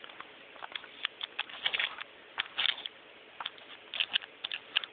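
Irregular light clicks and taps, a dozen or so spread unevenly, with a couple of short soft hissy sounds about a third and halfway in.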